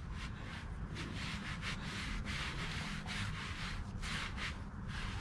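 Cloth rag wiping back and forth around the oil drain plug of a snow blower engine, a rhythmic rubbing of about three strokes a second, as spilled oil is cleaned up after the drain plug has gone back in.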